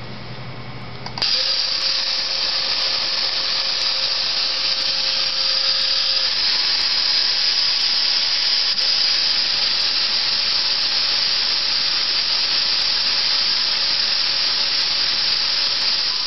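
Small electric motors of a VEX robotics testbed whirring as a RobotC program runs. The right motor runs alone for about five seconds at half speed, the left motor then runs briefly in reverse, and from about nine seconds in both run together at full speed.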